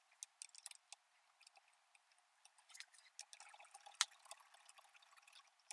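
Faint small metallic clicks and scrapes of bolts being threaded by hand into a compact tractor's rear wheel hub to mount a wheel spacer, with one sharper click about four seconds in.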